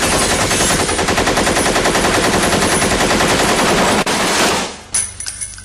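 A long burst of rapid automatic fire, shots coming evenly at about ten a second, stops about four and a half seconds in. A few light metallic clinks follow as it dies away.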